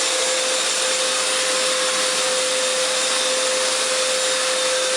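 Hoover FloorMate hard-floor wet cleaner running steadily in wash mode, its suction motor giving a steady whine over an even rush of air, with the brushes spinning.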